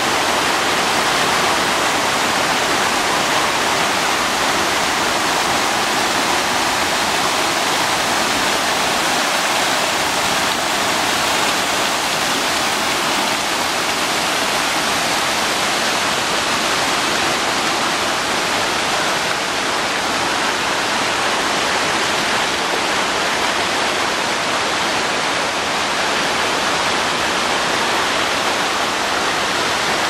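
A rocky mountain creek pouring over small waterfalls and boulder cascades: a steady, full rush of water.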